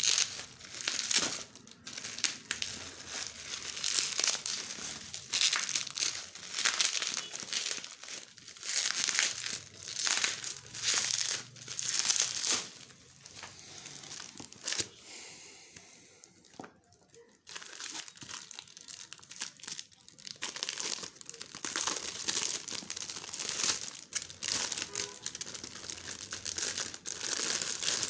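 Packaging of a new smartphone box crinkled and torn open by hand, in repeated bouts of rustling with a quieter pause about halfway through.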